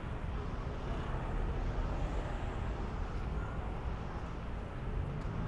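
Steady street traffic noise from vehicles passing on a busy seaside road.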